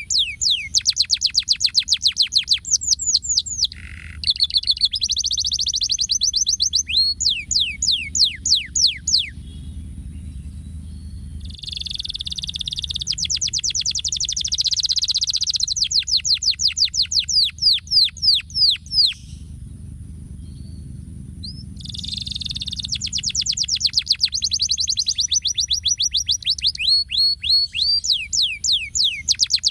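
Domestic canary singing a long, fast song of rolled trills and quick series of repeated sweeping notes, several a second, breaking off briefly twice.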